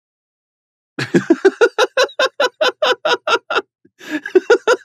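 Rapid, high-pitched laughter: a quick run of short 'ha-ha' pulses, about seven a second, starting about a second in, breaking off briefly near the end and then starting again.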